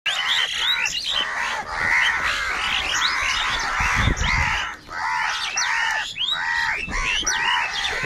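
A large flock of house crows cawing, many calls overlapping with hardly a break.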